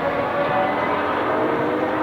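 Ferrari FXX Evoluzione's V12 engine running on track, its note fairly steady at first and then rising in pitch from about a second in as the car accelerates.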